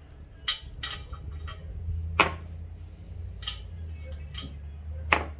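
Metal transmission parts clinking and knocking as they are handled, about seven sharp clicks at uneven intervals, the loudest about two seconds in and near the end, over a low steady hum.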